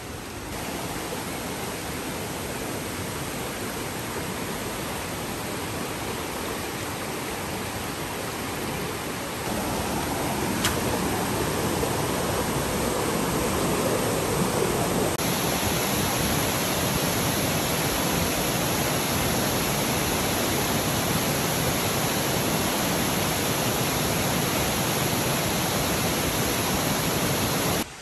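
Steady rushing hiss of a fast, monsoon-swollen stream over rocks, getting louder in two sudden steps, about a third and about halfway through.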